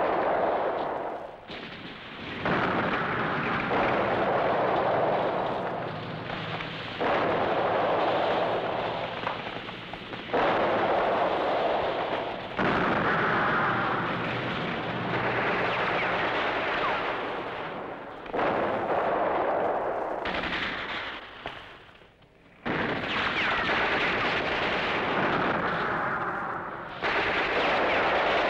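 Battle sound effects of gunfire and explosions. There are about ten loud blasts, each starting suddenly and dying away over one to three seconds.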